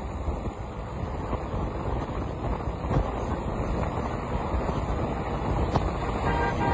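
Wind buffeting the microphone over the low rumble of a moving motorbike on the road. A vehicle horn starts sounding near the end.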